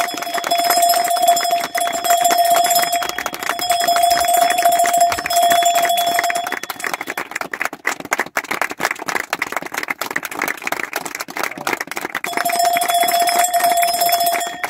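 A group applauding with sustained clapping. A bell rings in repeated bursts over the clapping through the first half, stops, and rings again near the end.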